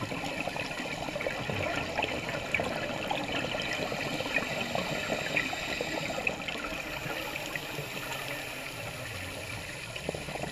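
Underwater sound picked up by a diver's camera at a coral reef: a steady crackling water noise made of many fine clicks, easing slightly in the last few seconds.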